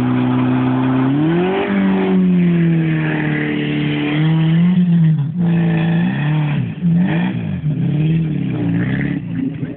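Lada Samara's four-cylinder engine revved hard with the wheels spinning. It is held high for a few seconds, then its pitch swings up and down several times as the throttle is worked.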